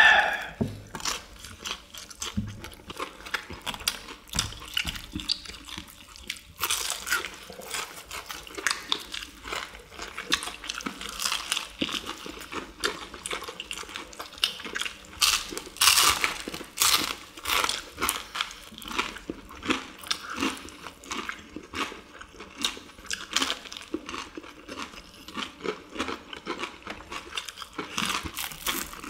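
Close-up crunching and wet chewing of fried chicken with a crisp perilla-leaf batter crust, as several people bite and chew.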